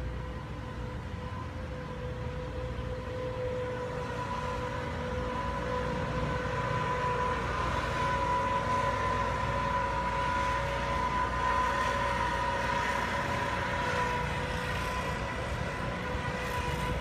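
A distant outdoor warning siren holds one steady tone over wind noise, swelling louder through the middle and easing off near the end.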